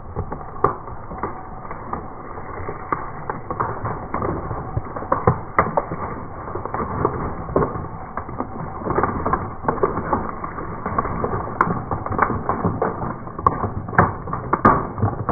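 Crunchy objects being crushed under a car tyre: a continuous, irregular crackling and cracking.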